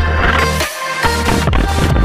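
Electronic music with a heavy bass line and a steady beat.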